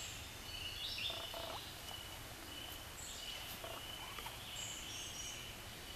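Faint bird calls: thin high notes held briefly and short higher chirps over a quiet outdoor background.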